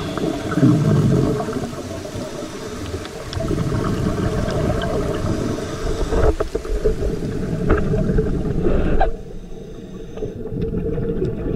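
Underwater audio of a scuba dive: a rough, gurgling rumble of exhaled regulator bubbles and water moving around the camera, with scattered small clicks. The rumble drops off about nine seconds in.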